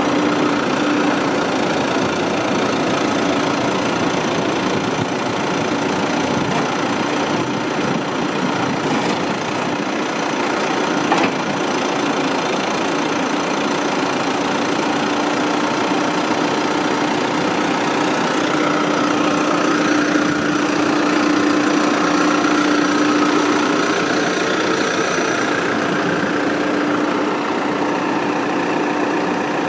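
Diesel engine of a 2005 New Holland LB110B backhoe loader running steadily at idle, with one short knock about eleven seconds in.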